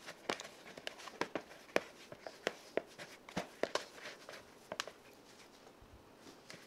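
A hand kneading sticky fathead dough of melted mozzarella, egg and almond flour in a mixing bowl: faint, irregular short clicks and taps. They stop about five seconds in.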